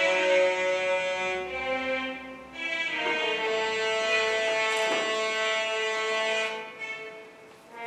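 Slow music of long, held bowed-string notes. One phrase ends about two and a half seconds in, and a new sustained note follows that fades away near the end.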